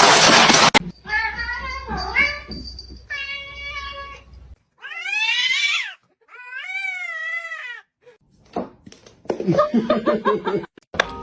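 Cat meowing: two long drawn-out meows in the middle, each rising then falling, among shorter calls. A brief burst of noise comes at the very start.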